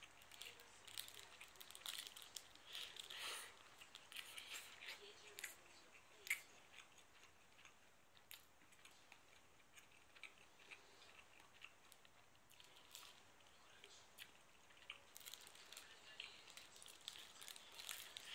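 Thin plastic film wrapper of a convenience-store onigiri crinkling in short bursts of faint crackles as it is peeled off the rice ball, with a quieter stretch in the middle.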